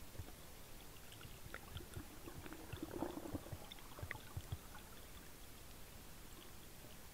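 Faint, muffled underwater water noise with a low rumble and scattered small clicks, and a brief louder burst of gurgling about three seconds in.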